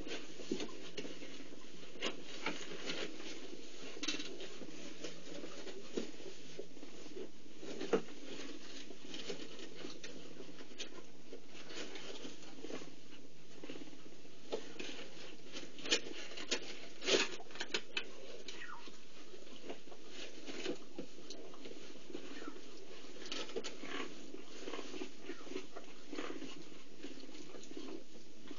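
Cheetah mother licking and grooming her newborn cubs while they shuffle and suckle: many small, irregular wet clicks and rustles, a cluster of louder ones about two-thirds of the way through, over a steady background hum.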